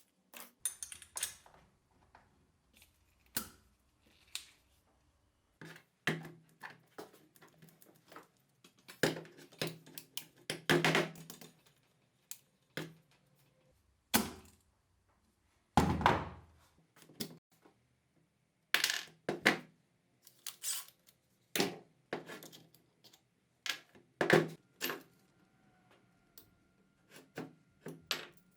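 Small metal parts and tools clinking, tapping and knocking at an irregular pace, some strikes ringing briefly, as a pneumatic screwdriver is handled and taken apart on a workbench.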